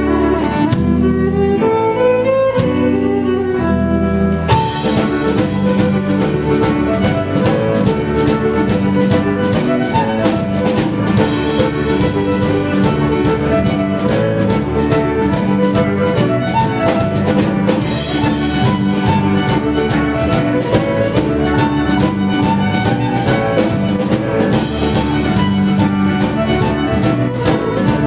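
Celtic fusion band playing an instrumental tune with fiddle; a drum kit and full band come in with a steady beat about four and a half seconds in.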